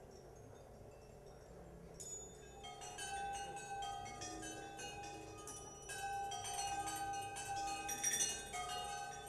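Improvised live music of chime-like ringing metallic tones from laptop electronics and percussion: faint held tones at first, then from about two seconds in a dense scatter of struck, bell-like notes over a few sustained tones, loudest near the end.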